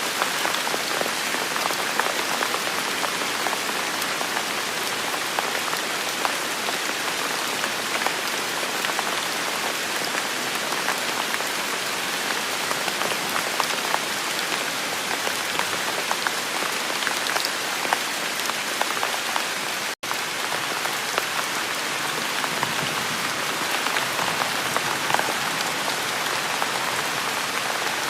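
Steady rain with many individual drops ticking as they strike a surface. The sound cuts out for an instant about two-thirds of the way through.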